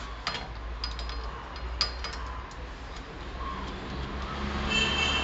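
Light metallic clicks and clinks of hand tools working on a car's wheel hub, likely while a bearing puller is being set up on a jammed axle. Near the end a steadier mechanical noise with a held whine builds up.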